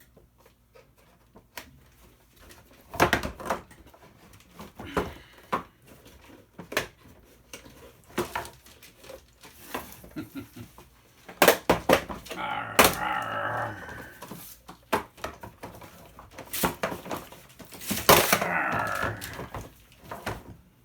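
Hard plastic parts of a toy being pried and knocked apart by hand: scattered clicks and knocks, with two longer, louder stretches of rasping and scraping plastic, one around the middle and one near the end.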